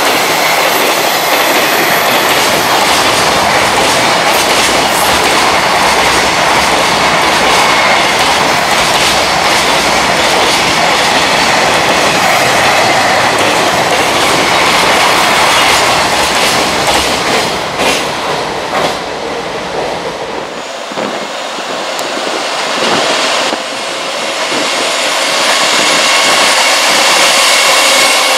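Freight train container wagons rolling past at speed, the wheels clattering steadily over the rail joints. The noise dips about twenty seconds in. Near the end it builds again as a second freight train, led by an EF210 electric locomotive, comes through.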